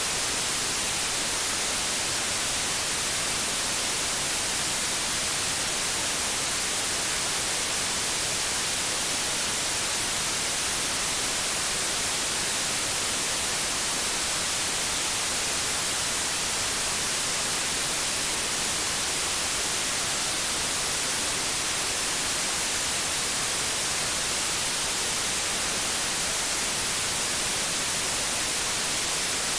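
Steady white noise: an even, unchanging hiss, strongest in the high treble.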